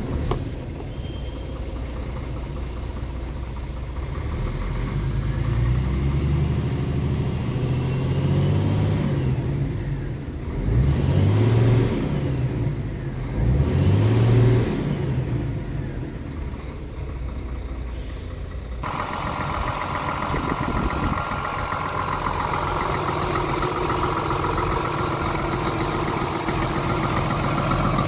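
Scania R tractor unit's diesel engine idling, then revved up twice with the pitch rising and falling back, settling to idle. Near the last third the sound changes abruptly to a steady idle with more whir and hiss, as heard at the open engine compartment.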